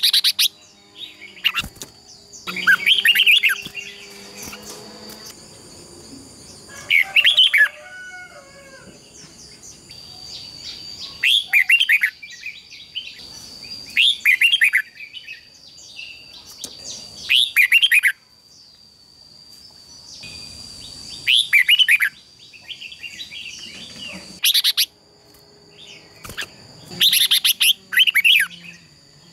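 Red-whiskered bulbuls singing in a song duel: loud, short, fast-warbling phrases of about a second each, repeated every two to three seconds, over a steady high thin tone.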